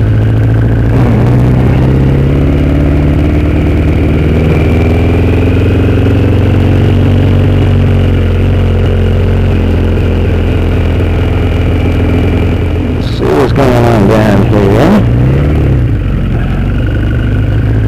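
Motorcycle engine running while riding, heard from the rider's seat, its pitch rising and falling gently with the throttle. A short rush of noise comes about thirteen seconds in.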